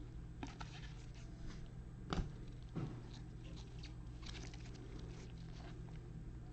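Trading cards being handled: soft slides, rustles and light clicks of cards and plastic, with one sharper click about two seconds in, over a steady low electrical hum.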